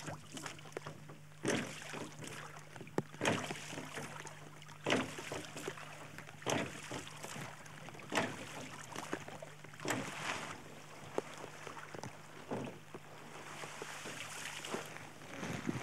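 Oars of a rowboat dipping and pulling through river water, one splashing stroke about every one and a half to two seconds.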